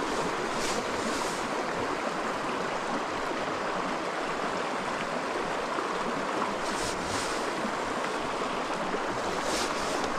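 Small mountain creek running: a steady, even rush of flowing water, with a few faint brief hisses near the start and near the end.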